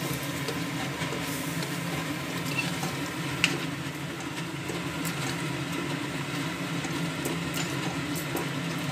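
Spatula stirring a watery curry gravy in a metal kadhai, with small scrapes and clicks against the pan and one sharper clack about three and a half seconds in, over a steady low hum.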